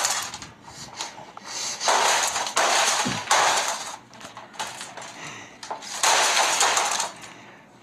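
Repeated loud smashing and crashing of glass and debris being struck with a hammer: about five sudden crashes, each dying away within about a second, with a pause in the middle.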